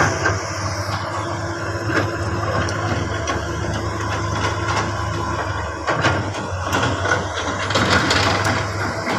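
Komatsu hydraulic excavator's diesel engine running with a steady low drone, with scattered knocks and clanks as the machine works the muddy ground.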